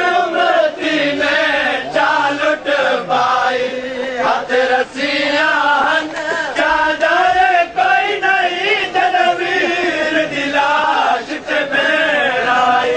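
A large crowd of male mourners chanting a noha in unison, with regular sharp slaps of hands beating chests (matam) cutting through the chant.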